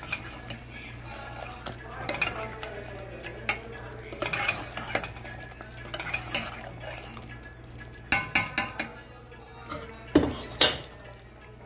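Stainless steel spoon stirring and scraping thick, fully cooked chicken curry in a steel pot, with clinks of the spoon against the pot's side. There is a quick run of clinks about eight seconds in and two louder knocks near the end.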